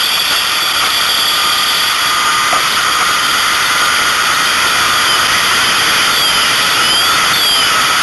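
Loud, steady machine noise, a rushing hiss like a running engine or powered equipment, with faint rising and falling whistle-like glides about five to seven seconds in.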